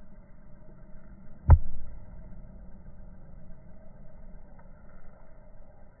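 A single dull thump about one and a half seconds in, over a steady low rumble of distant traffic.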